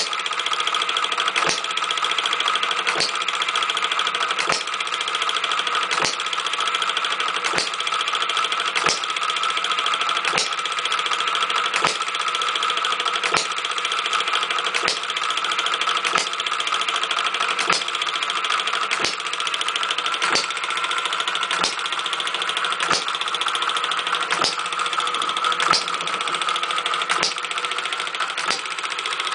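Homemade model six-cycle hit-and-miss gas engine with a flyball governor running, a steady mechanical clatter broken by a sharp click about every one and a half seconds.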